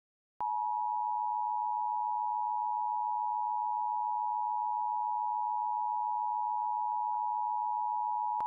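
Emergency alert attention signal: a steady two-tone electronic alarm, held for about eight seconds. It starts sharply just under half a second in and cuts off abruptly at the end.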